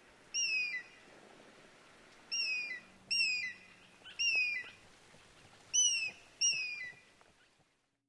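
Bald eagle calling: six short, high whistled notes, each sliding down in pitch, given singly and in pairs.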